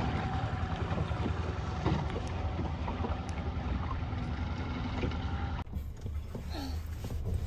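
Small open motorboat running across the water, with its outboard motor and wind on the microphone making a steady noise. The sound drops off suddenly about five and a half seconds in to a much quieter background.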